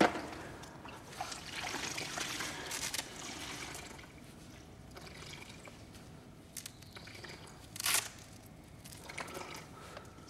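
Water trickling and dripping from a wet mop in a plastic bucket, with a sharp click right at the start and one short rasp about eight seconds in.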